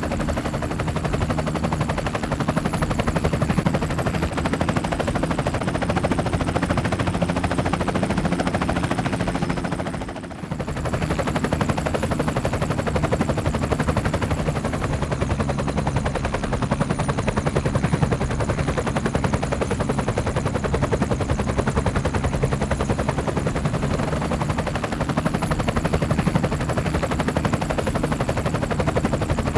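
Honda CB500X parallel-twin engine with a Staintune exhaust running steadily under way, mixed with wind noise on the helmet microphone. The level dips briefly about ten seconds in.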